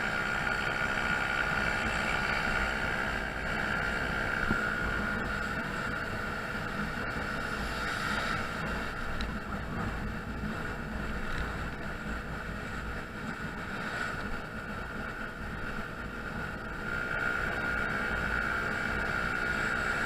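Honda Zoomer's 49cc four-stroke single engine running steadily while the scooter is ridden along, with wind and road noise. The engine eases off around the middle and picks up again near the end.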